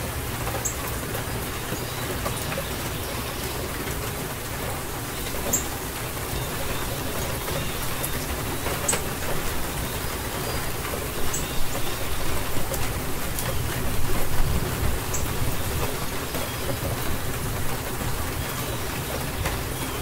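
Steady rainfall hissing evenly, with a low rumble of distant thunder swelling and fading about halfway through.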